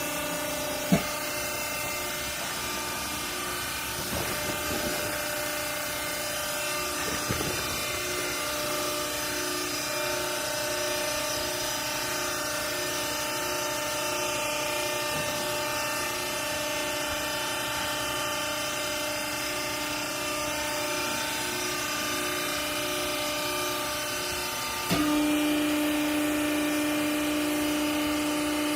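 Hydraulic pump motor of a vertical clothes baler humming steadily. A sharp click comes about a second in. Near the end, after a knock, the hum becomes louder and a little lower in pitch.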